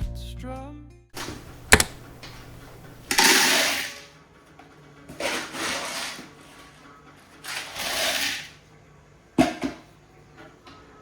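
Everyday household handling sounds: a sharp click, then three short rushing bursts of about a second each, and another knock near the end. The soft background music fades out about a second in.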